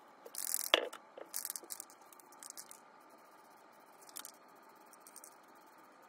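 Handling noises while working a carbon fiber sheet onto a shift knob: several short crinkling, hissy bursts in the first few seconds, with a sharp knock under a second in and a fainter burst a little past the middle.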